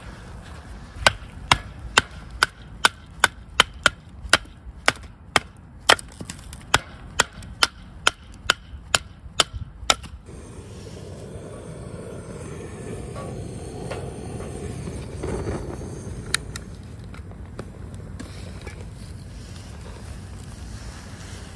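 Kindling split by batoning: a wooden baton strikes a blade driven down through a stick of firewood, giving about twenty sharp wooden knocks at roughly two a second for the first ten seconds. After that comes a steady rushing noise as a wood fire burns in a steel fire pit, with one sharp pop a little past the middle.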